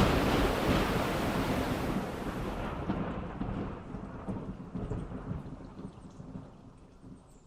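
Heavy rain with a roll of thunder dying away, the whole sound fading steadily from loud to faint.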